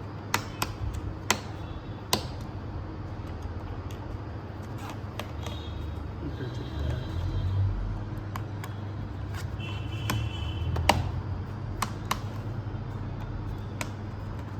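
Phillips screwdriver working the bottom-cover screws of a Dell Vostro 3420 laptop: scattered sharp clicks and ticks of the bit and screws against the plastic case, with two brief high squeaks, over a steady low hum.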